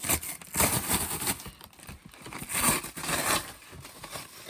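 Packing tape being torn and peeled off a cardboard box, in several noisy ripping spells.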